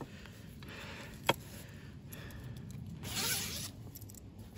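Zip on the side of a padded carp cradle being pulled along in strokes, the longest and loudest about three seconds in. A single sharp click a little over a second in.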